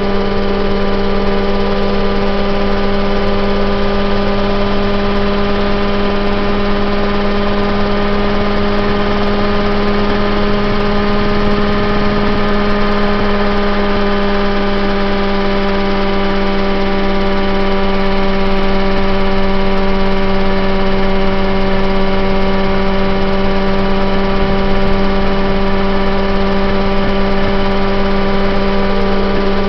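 Mosquito ultralight helicopter heard from on board in flight: a steady engine and rotor drone with one clear, unchanging pitch. The pitch sags slightly about halfway through.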